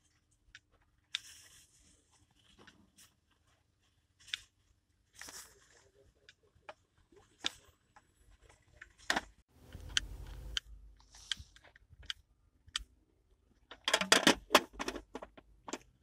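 Scattered clicks and rustles of gloved hands handling the plastic turn-signal cam ring on a car's steering column. Near the end, a dense clatter of metal hand tools being rummaged through in a toolbox drawer, the loudest sound.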